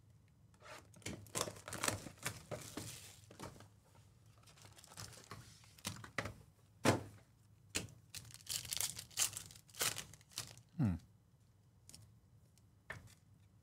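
A Panini Select trading-card box and its foil-wrapped packs being opened by hand: cardboard and foil tearing and crinkling in a string of short rasps and taps. Near the end there is a short falling squeak, and then it goes quiet.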